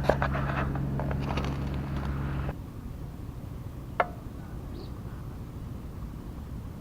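A steady low mechanical hum that cuts off suddenly about two and a half seconds in, leaving quieter background with a single sharp click about four seconds in.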